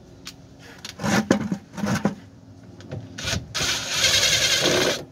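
Rubbing and scraping as the rubber fuel filler hose is worked and twisted off the filler neck under the car: a few short scrapes, then a louder rubbing lasting over a second near the end that stops suddenly.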